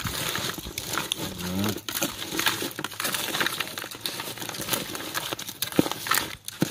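Shell-on crayfish being mixed by hand with chopped seasoning and margarine: a dense, irregular clicking and rustling of shells and wet seasoning.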